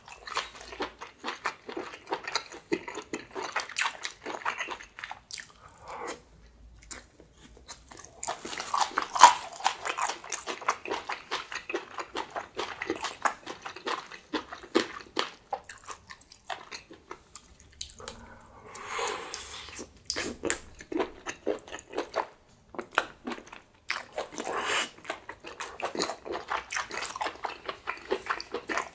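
Close-miked eating sounds: biting and chewing small octopus and kimchi, wet smacks and crunches in quick succession, in several bouts with short pauses.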